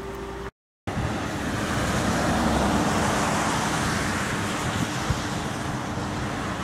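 Steady road traffic noise from passing cars, picked up outdoors, after a brief dropout to silence about half a second in.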